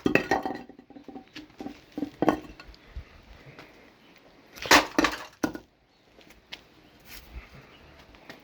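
A brick dropped onto a wrecked, thin sheet-metal appliance casing: a heavy crash with clattering and rattling debris. Smaller knocks follow, then a second heavy crash about five seconds in.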